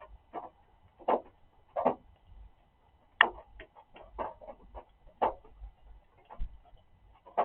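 Rain drips falling irregularly onto objects, giving separate drum-like knocks and plinks about one or two a second, some louder than others.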